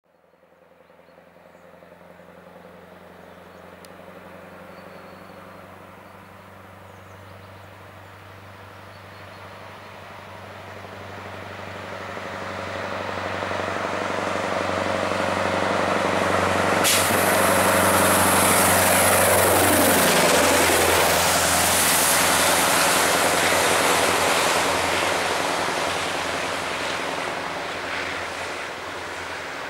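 Scania 143E 500 truck's straight-piped V8 diesel running as it pulls an empty lowboy trailer past, growing steadily louder as it approaches. A sudden hiss joins just before it passes, it is loudest going by, then it fades as it drives away.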